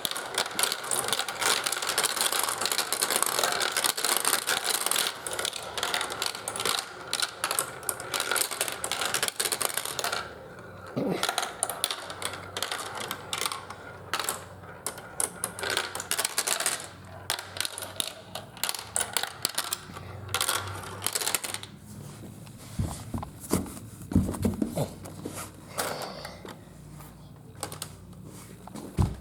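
Marbles clattering down a marble run: a dense, fast rattle of clicks for about the first ten seconds, then scattered clicks and a few dull knocks near the end.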